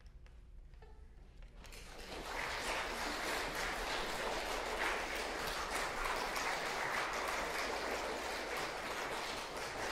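A moment of quiet, then audience applause starts about two seconds in and continues steadily.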